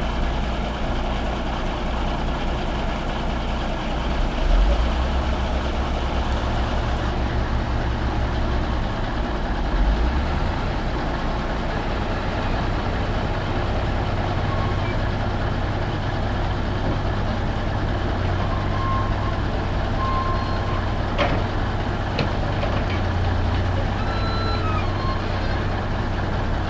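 Heavy diesel engines running steadily as a log truck sits and a hydraulic log loader works logs onto it, the low engine note swelling briefly twice and shifting about ten seconds in. A few short high tones come in the second half.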